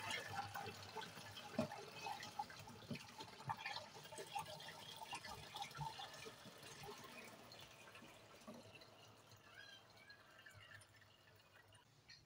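Juice trickling and dripping through a plastic funnel into a 5-litre plastic bottle, faint and dying away toward the end.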